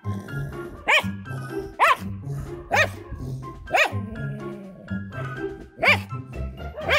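A dog barking, single barks about once a second, six in all with a gap in the middle, over background music with a steady beat.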